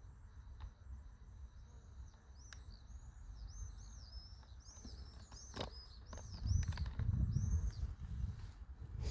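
A songbird singing a rapid series of short, high, arched notes for several seconds, over a low rumble that grows louder near the end.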